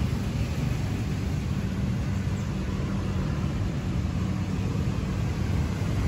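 Hyosung GT650R's 647 cc V-twin engine idling steadily, a low even rumble.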